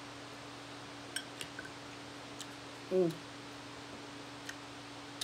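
A person eating chicken wings: a few small sharp clicks and smacks from mouth, fork and fingers at the food, and one short low "mm" from the eater about three seconds in. A faint steady hum runs underneath.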